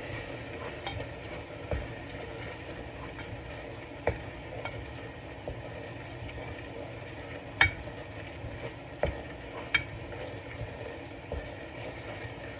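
Seasoned ground lamb frying in a pan while being stirred: a steady sizzle with a few sharp clicks of the utensil against the pan, the loudest about seven and a half seconds in.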